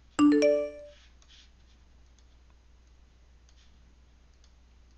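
A short electronic computer alert chime of about three quick rising notes, a quarter second in, dying away within half a second. Faint mouse clicks follow.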